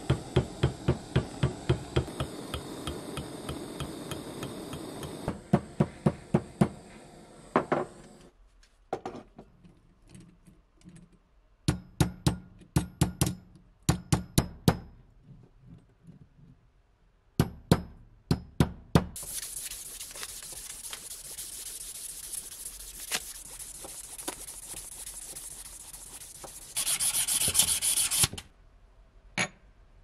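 Soft-faced hammer tapping the lighter's bent metal barrel tube straight while it is heated, rapid even blows over the steady hiss of a butane torch, then short runs of sharp taps on a steel block. In the last third a steady hiss runs for about nine seconds, louder for a moment near the end.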